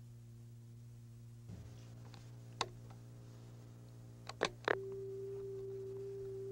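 Clicks and knocks of a telephone handset being picked up, then a steady single-pitch dial tone starts with a click a little under five seconds in, over a low electrical hum.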